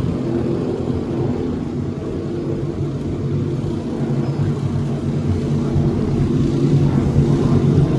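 Offshore racing powerboat engines running at speed: a steady low drone that eases slightly, then builds again in the second half.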